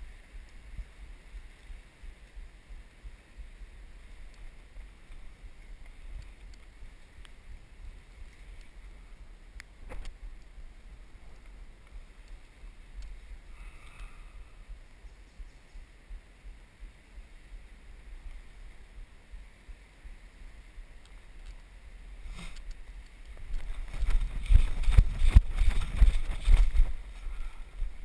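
Low wind and handling rumble on a body-worn camera's microphone, with a single click about ten seconds in. Near the end comes about three seconds of loud, irregular rustling and crunching as the wearer moves through dry forest undergrowth.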